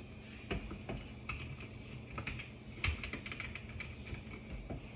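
Irregular light clicks and taps of small faucet parts being handled and fitted, a few a second, the sharpest about three seconds in.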